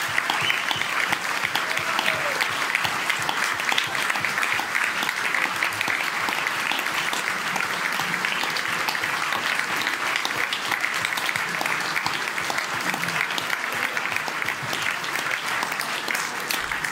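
Large audience applauding, a dense, steady clapping that carries on without a break.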